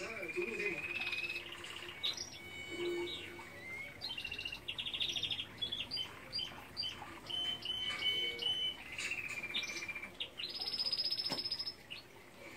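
Songbirds singing: clear whistled notes and rapid trills, with a long, fast, high trill near the end.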